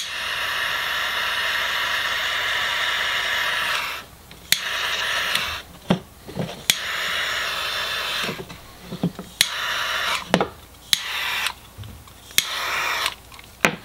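Heat gun blowing to shrink heat-shrink tubing onto an LED lamp's wire lead: one long run of about four seconds, then several shorter bursts as it is switched on and off, with sharp clicks and taps of handling between them.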